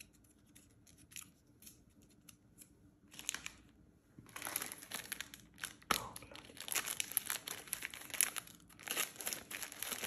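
Candy packaging handled and opened: a few light clicks and rustles at first, then from about three seconds in, dense crinkling and tearing of wrappers.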